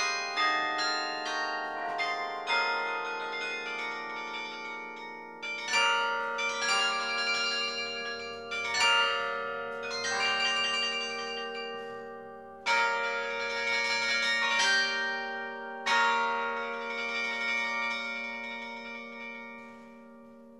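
Carillon bells played from the baton keyboard: a run of quick notes, then slower struck chords a second or two apart, each ringing on with a long decay. Near the end no new notes are struck and the bells die away.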